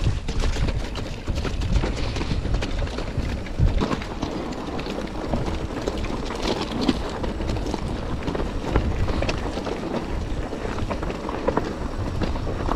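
Mountain bike descending a rough, loose trail: the tyres crunch over stones, the bike rattles with irregular knocks and thumps, and wind buffets the microphone throughout.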